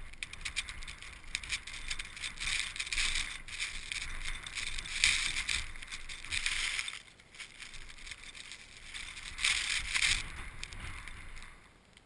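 Blizzard wind gusting, with a hissing rush of driven snow and a low rumble of wind on the microphone. It swells strongest about five seconds in and again near ten seconds, eases briefly around seven seconds, and dies down near the end.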